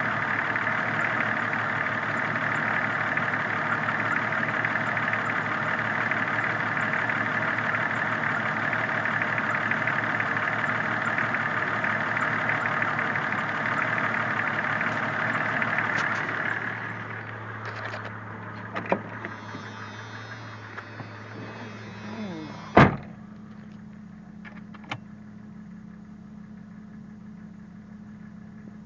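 1993 Jeep Cherokee engine idling steadily, which the owner suspects of knocking. About 17 seconds in it drops to a much quieter, muffled low hum, with a few clicks and one sharp bang, like a door shutting, about 23 seconds in.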